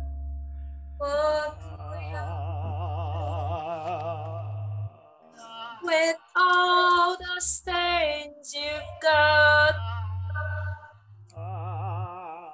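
Wordless female voice improvising held, wavering notes with a wide vibrato, over a low steady drone that stops and restarts several times.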